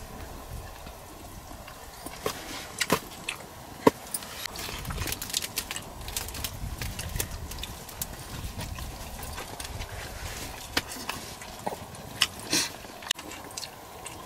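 People eating rice and meat curry by hand from steel plates: scattered small clicks and scrapes of fingers against the plates, along with chewing. The sharpest click comes about four seconds in.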